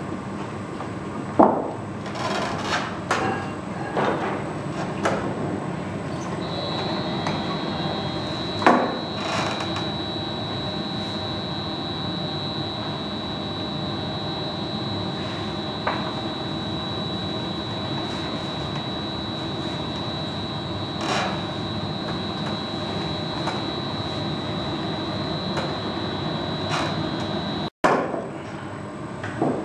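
Steady roar of a glass studio's gas-fired furnaces and burner, with a few sharp knocks of the blowpipe against the bench in the first ten seconds. About six seconds in, a high steady whine joins the roar and runs until an abrupt cut near the end.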